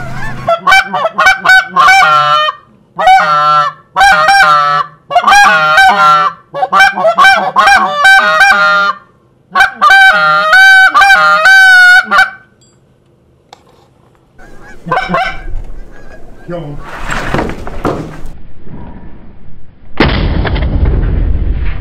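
Goose call blown hard and close in a rapid run of loud honks and clucks for about twelve seconds, calling to circling geese. After a pause, a shotgun shot goes off near the end.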